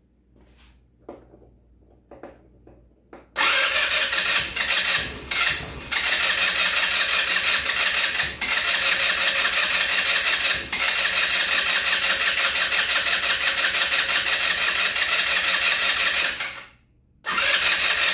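GY6 150cc scooter engine being started, cranking and running loudly from a few seconds in with brief dips. It cuts out near the end and starts up again at once. This is a new scooter that will not keep running, a fault later traced to fuel delivery through the carburetor.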